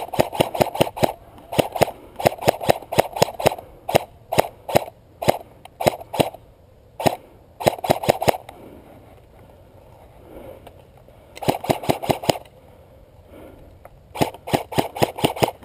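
Airsoft rifle firing strings of sharp cracks, about six shots a second, in repeated bursts. The bursts pause twice for a couple of seconds in the second half.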